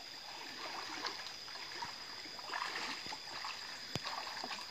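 Shallow stream water splashing and sloshing as a person paddles his hands in it and then wades through it, with a single sharp click about four seconds in.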